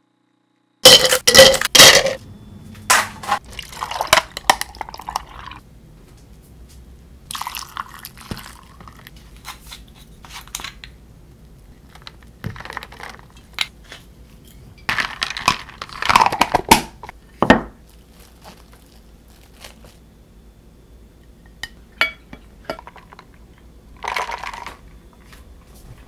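Kitchen handling sounds while an iced latte is assembled in a plastic tumbler. About a second in comes a loud clatter, like ice and a cup being knocked about. After that come scattered clinks of glassware, pours and rustles.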